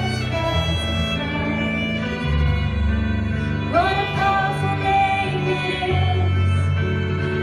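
Live worship music: a fiddle playing a bowed melody over sustained low bass notes, with a woman singing. About halfway through a note slides up into a long held tone.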